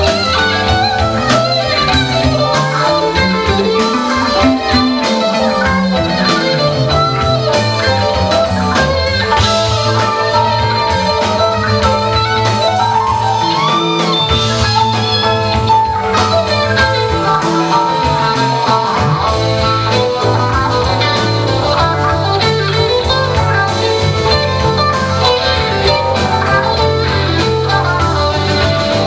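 Live rock band playing an instrumental passage: electric guitars over bass, drum kit and keyboard, with a long held note in the middle.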